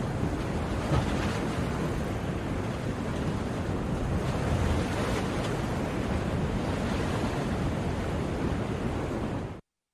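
Ocean surf: a steady wash of breaking waves that cuts off abruptly into silence near the end.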